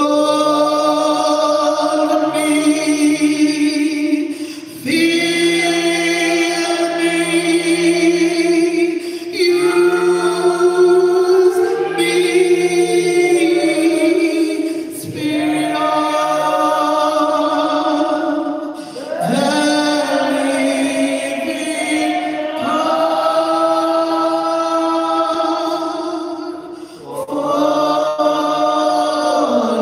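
A woman singing a gospel praise song solo into a microphone, holding long notes with vibrato in phrases of about four to five seconds, with short breaths between them.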